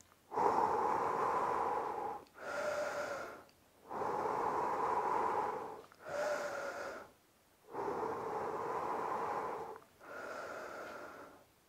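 A man breathing deeply and audibly to recover after a set of cross runs: six breaths in a row, alternating a longer breath of about two seconds with a shorter one of about a second.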